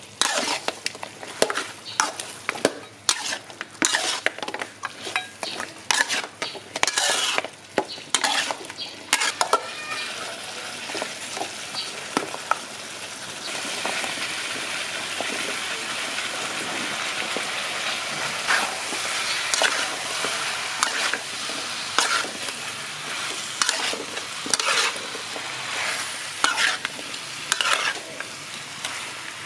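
Metal spatula scraping and knocking against a steel wok as sauced pork ribs are stir-fried. About halfway through, a steady sizzling rises as chopped onion, peppers, tomato and pineapple go into the hot wok, and the spatula scrapes go on over it.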